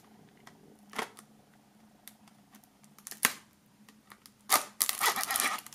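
A knife clicking twice against a plastic CD jewel case, then about four and a half seconds in, a second of scratchy crinkling as the case's shrink-wrap is slit and pulled.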